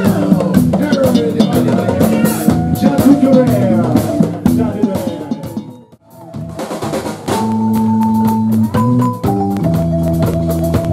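Live band music: a woman singing over drum kit and band. About six seconds in the sound cuts out for a moment, then a balafon's wooden keys ring out in rolled notes over the band.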